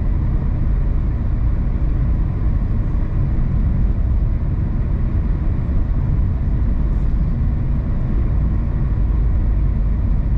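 Steady road noise of a car driving at an even speed: tyre roar and engine drone, strongest in the low end, with no changes.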